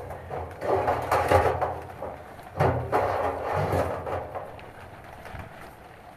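Knocking, rubbing and scraping from handling sheet-metal heater flue pipe while fitting it, with two busier bouts about a second in and near three seconds, then fading.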